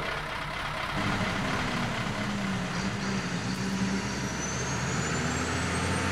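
Truck engine sound, evidently laid over the toy race: a steady low engine note from about a second in. About four seconds in a high whine joins it and climbs steadily in pitch, like an engine revving up as the race starts.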